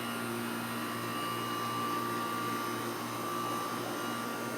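Steady machine drone with a faint constant whine, like a motor running without a break.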